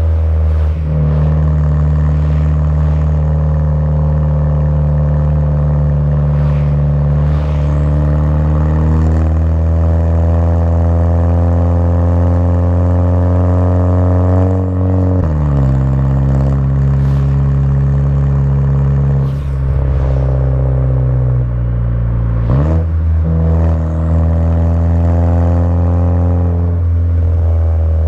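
Volkswagen Jetta GLI Mk6's turbocharged 2.0-litre four-cylinder engine, with an aftermarket downpipe and cat-back exhaust, running under load with a deep exhaust drone. The engine pitch climbs slowly, falls sharply about halfway through with a gear change, then jumps back up about three-quarters through.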